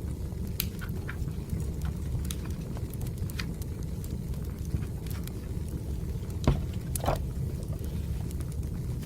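Wood fire burning, a steady low roar of flames with frequent small crackles and pops. Two louder cracks come about six and a half and seven seconds in.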